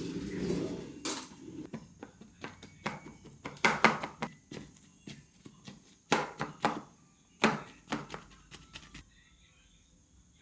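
Kitchen handling clatter: an uneven run of knocks and clinks of dishes, containers and utensils, which stops about nine seconds in.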